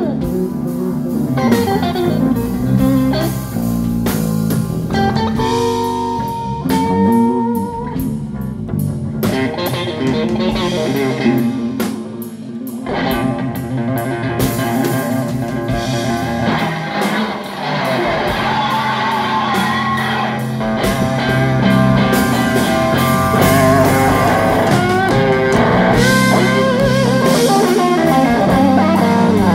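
Live blues band playing: electric guitar over bass guitar and drum kit, with sliding, bent guitar notes. The playing gets louder and fuller about two-thirds of the way through.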